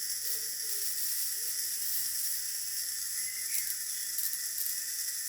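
Tefra N 53 violet-ray high-frequency device running, its spark discharge giving a steady high hiss with a thin steady tone in it. The spark is only about 8 mm long, too weak, which the owner suspects comes from a problem in the handle.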